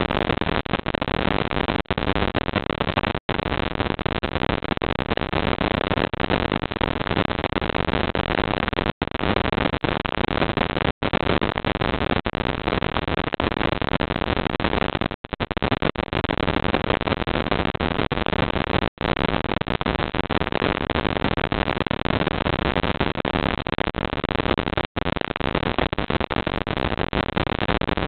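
Steady, even noise on a security camera's audio, like hiss or rain, cut by several brief dropouts to silence.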